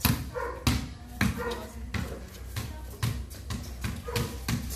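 A basketball dribbled on concrete: a run of about nine hard bounces, roughly two a second and unevenly spaced, each with a short ringing ping from the ball.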